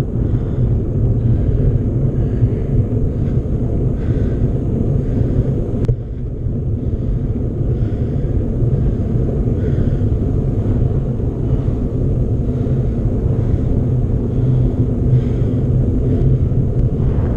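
Wind buffeting the microphone over the steady low rumble of a mountain bike being ridden, with a brief dip about six seconds in.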